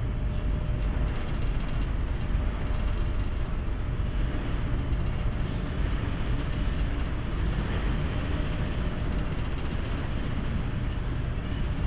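Steady, loud rumble and wind noise aboard the Great Lakes freighter MV Joseph L. Block, underway in heavy seas and high winds. It is a deep, unbroken rumble with a hiss over it and no single event standing out.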